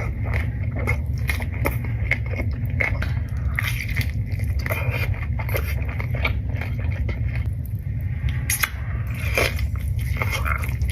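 Close-miked eating of birria tacos: biting and chewing, with many quick crackling clicks from the crisp tortilla over a steady low rumble.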